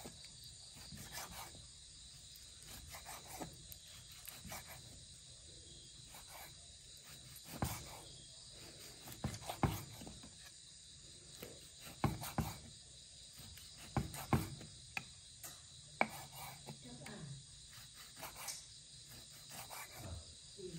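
Kitchen knife slicing raw pork belly on a wooden chopping board: irregular knocks of the blade hitting the board, coming more often after the first few seconds. Crickets chirr steadily in the background.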